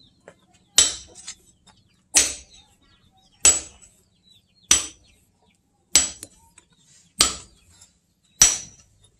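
Hand hammer striking a red-hot axe head on a small steel anvil: seven evenly spaced blows, about one every 1.2 seconds, each with a short high metallic ring. The blows are hot-forging, shaping the axe head.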